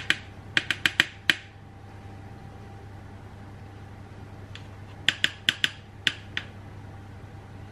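A metal measuring spoon tapping and clinking against the rim of a tin baking powder can in quick sharp clicks, about six in the first second and a half and another run of about six later on, knocking off the excess from each level teaspoon.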